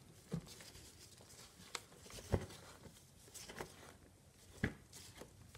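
Gloved hand sifting through damp shredded-cardboard bedding in a plastic worm bin: a handful of brief, scattered rustles and soft crackles.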